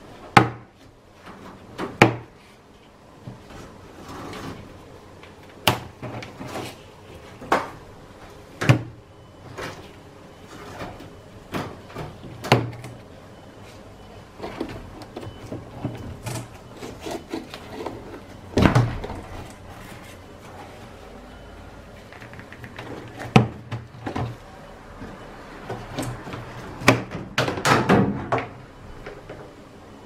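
The plastic rim ring of a Hitachi NW-7MY top-loading washing machine's tub being pried off by hand. Sharp clicks and snaps come at irregular intervals as its retaining claws come free, with a cluster of them near the end. Plastic rubs and scrapes between the snaps.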